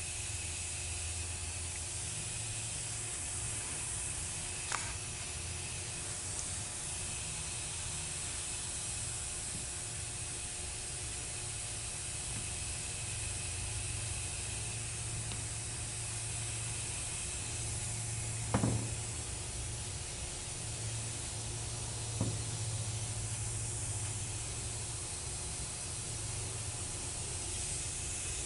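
Steady background hiss with a low hum, broken by three light taps of the steel separator plate and gasket being handled on the aluminium valve body, the loudest about two-thirds of the way through.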